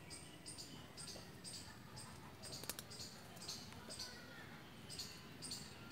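High-pitched chirping from a small animal, short chirps repeating about twice a second, some in quick pairs, with a couple of faint sharp clicks near the middle.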